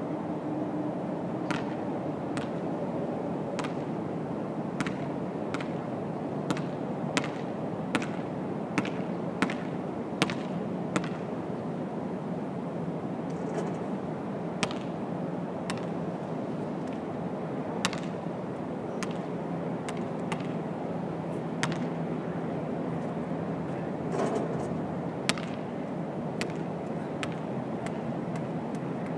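Basketball bouncing on an outdoor court: a regular run of dribbles a little over one a second for the first ten seconds or so, then scattered single bounces, over a steady low background hum.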